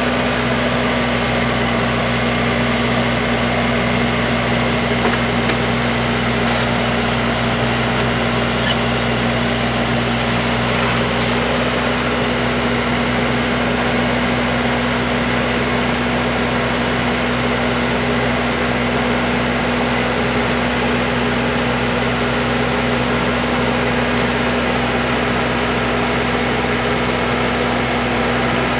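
Case backhoe's diesel engine running at a steady, unchanging speed while it works its hydraulic boom to lift a fallen traffic-signal pole.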